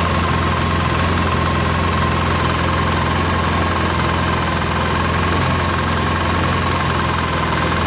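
Polaris Sportsman 700's parallel-twin four-stroke engine idling steadily, with a steady high whine alongside. It is warmed up with its thermostat open and coolant circulating, not overheating, after a head gasket replacement.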